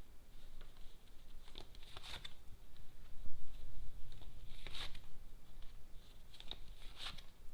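Lenormand cards being handled for the next draw: several short rustling swishes of card against card, spread through, around two, five and seven seconds in.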